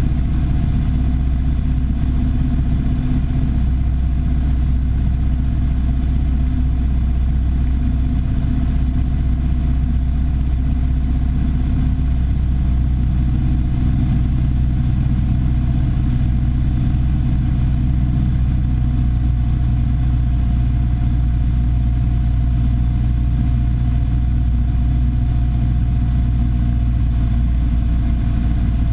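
Piper Warrior III's four-cylinder Lycoming engine and propeller running steadily, a constant low drone.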